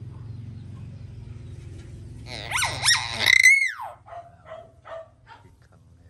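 Caged hill myna calling loudly: about two seconds in, a few harsh notes sweeping up and down in pitch, ending in a longer whistle that rises and falls. A quick run of four or five short, lower notes follows.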